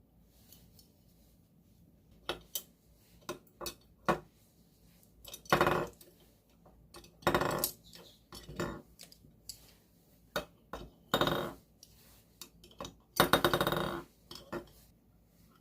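Small hard objects being handled: a string of sharp clicks and several short clinking rattles, the longest and loudest near the end.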